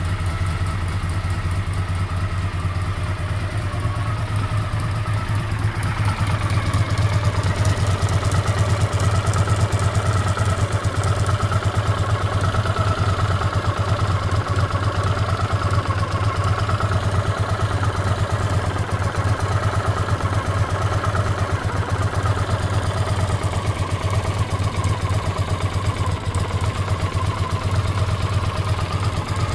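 Honda CX500's liquid-cooled V-twin idling steadily with a clicking noise from the left cylinder head, which the owner suspects is a leaking exhaust gasket or, at worst, a worn-out cam chain.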